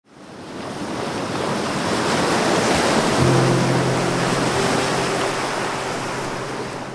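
A steady rushing, surf-like noise that swells up over the first two seconds and eases off toward the end. Low sustained music notes join it about three seconds in.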